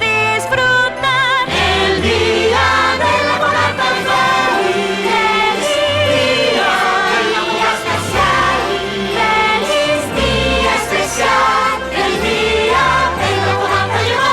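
A choir of voices singing a festive holiday song over instrumental accompaniment, through the closing bars of the song.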